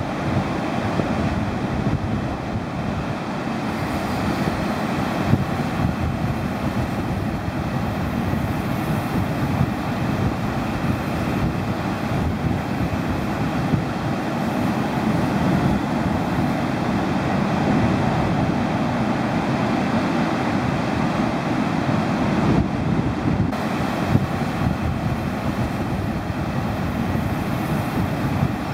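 Steady rush of surf breaking along the shore, with wind buffeting the microphone.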